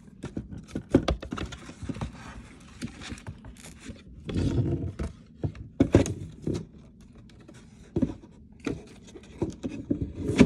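Cardboard box packaging being handled and pulled apart: irregular scrapes, light knocks and rustling, with a longer rustle about four and a half seconds in and another around six seconds.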